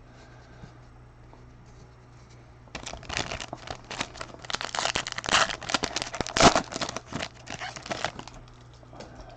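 Crinkly plastic or foil wrapper being handled, a dense run of crackling and rustling that starts about three seconds in and stops a second before the end.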